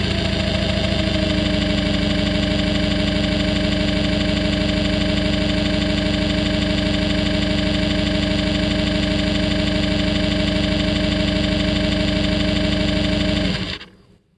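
Homemade electronic engine-sound simulator imitating a Subaru EJ20 flat-four with equal-length exhaust, its metallic timing-belt whine made to ring off a steel plate. It settles into a steady idle of about 1000 rpm after a rev drop, then shuts off abruptly near the end.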